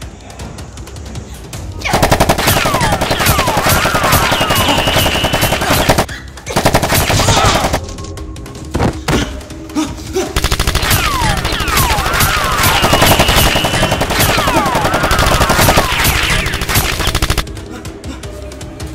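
Two long bursts of rapid automatic gunfire, a firearm sound effect dubbed over Nerf blaster play, with falling whistling sweeps among the shots. The first burst lasts about four seconds; after a gap with a few single shots, a second burst runs about seven seconds.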